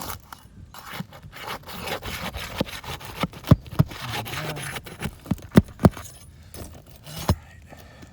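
Roof shingles being pried loose: scraping and rubbing with several sharp knocks, the loudest clustered in the middle of the stretch.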